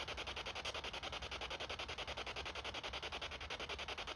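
An electronic noise machine for ghost hunting putting out rapid, evenly pulsing static, about eight pulses a second.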